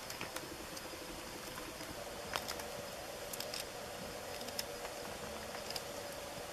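Knife whittling a small piece of wood by hand, giving a few sharp clicks and scrapes, the loudest about two seconds in. Underneath runs a steady drone of night insects.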